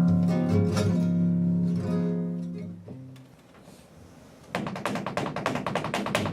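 Flamenco acoustic guitar playing tientos: low chords ring and fade away over the first three seconds or so, leaving a short hush. About four and a half seconds in, a fast, dense run of sharp percussive strikes starts suddenly.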